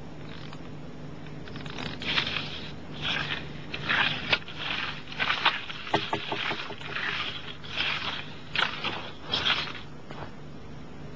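A series of about a dozen short scraping strokes, starting about two seconds in and stopping near the end, over a low steady hum.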